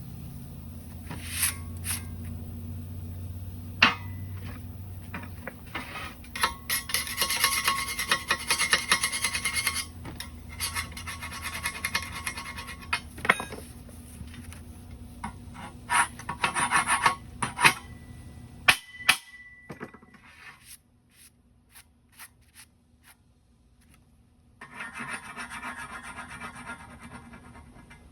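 Scraping and rubbing on metal during fit-up work, in three spells of several seconds each. Sharp knocks and clinks of metal pieces being handled come in between.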